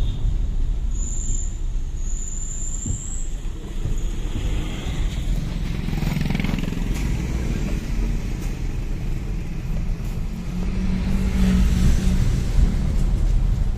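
Turbo-diesel vehicle engine running steadily with a low rumble, with a thin high whistle between about one and three seconds in.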